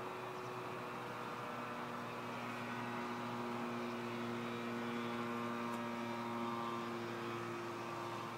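Thruster microlight's Rotax 503 two-stroke twin engine and propeller droning steadily overhead in flight. The drone is a little louder about halfway through.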